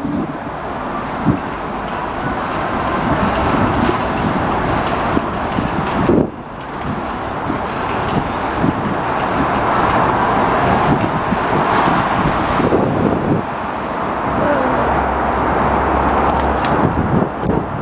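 Steady rushing noise of riding a bicycle: wind on the microphone and tyres rolling on a paved path, with frequent low bumps and a brief dip about six seconds in.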